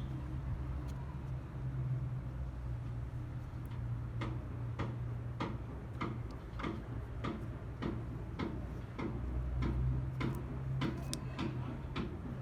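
A run of short, sharp clicks, roughly one to two a second, beginning about four seconds in, over a steady low hum.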